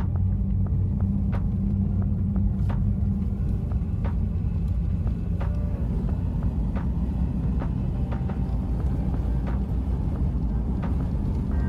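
Inside the cabin of a moving car: a steady low rumble of the engine and the tyres on the road, with scattered light clicks.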